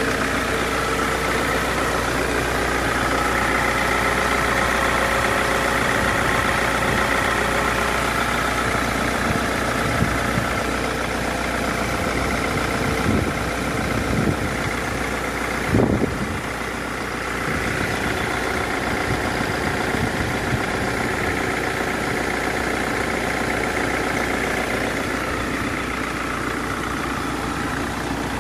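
Mercedes-Benz OM646 four-cylinder turbodiesel idling steadily. A few brief knocks come over it, the loudest about sixteen seconds in.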